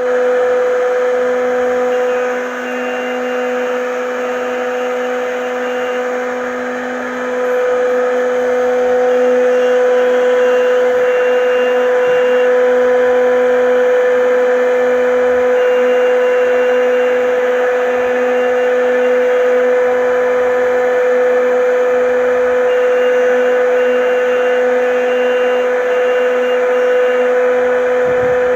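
CNC router spindle running with a steady high whine while its bit cuts a lattice pattern through a sheet, with cutting noise underneath. It is a little quieter for a few seconds early on, then holds steady.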